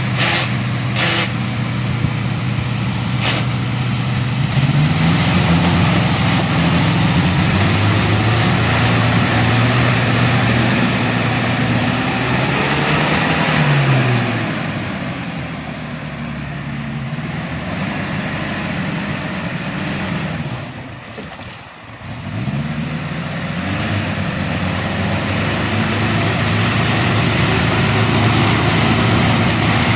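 A motor vehicle's engine running steadily, its pitch rising and falling as it speeds up and eases off, with a short drop in loudness about two-thirds of the way through.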